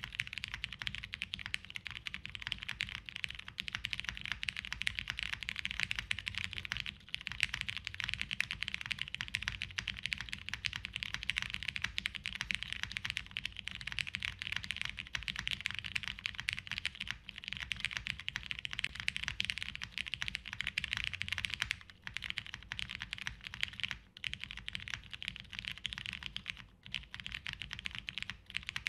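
Fast, continuous typing on a custom TGR Jane V2 CE mechanical keyboard. It has broken-in Brown switches lubed with 205g0, a half FR4 plate, TX stabilizers and Cherry G81-3100 dye-sub keycaps. The keystrokes form a dense stream with a few brief pauses.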